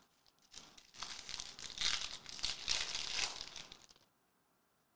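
Plastic trading-card pack wrapper crinkling and tearing as a pack of cards is opened by hand. It lasts about three seconds and stops about four seconds in.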